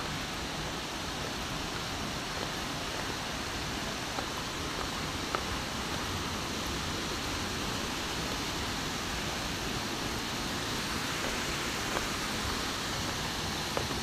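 Steady rushing of a waterfall and river: an even hiss that holds level throughout, with a few faint taps.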